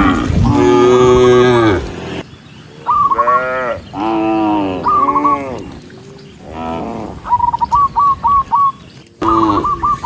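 Cattle mooing, several long moos one after another, some overlapping. In the second half a quick series of short, high chirps repeats about four to five times a second.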